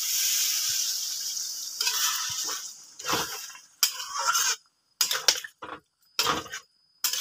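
Water poured into a hot kadhai of frying chicken masala, hissing and sizzling steadily for about two seconds. Then a metal spatula stirring and scraping against the metal pan in short, separate strokes.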